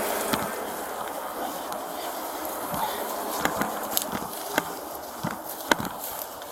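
Irregular clicks and rustles close to the microphone, coming more often in the second half, over a steady hiss that fades during the first seconds.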